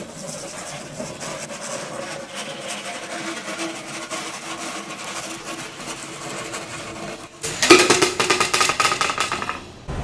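A hand saw cutting through white PVC pipe in steady back-and-forth strokes. It turns louder and faster for the last couple of seconds.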